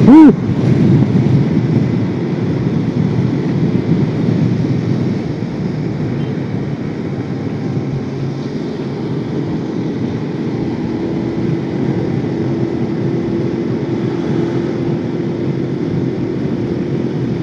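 Steady engine and road noise from a motorcycle being ridden at a constant pace on a smooth road. A faint steady engine tone comes in about ten seconds in.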